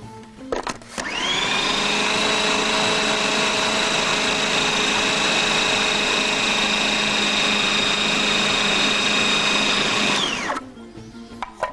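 Electric food processor motor after a couple of clicks: it spins up quickly to a steady whine, runs for about nine seconds blending minced chicken with breadcrumbs into a paste, then winds down near the end.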